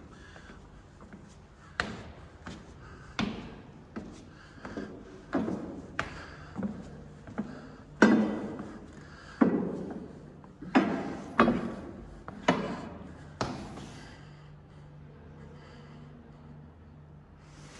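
Footsteps on the wooden stepped ramp of the Great Pyramid's Grand Gallery, irregular steps about one a second, echoing off the tall stone walls. The steps are heaviest in the middle and die away over the last few seconds.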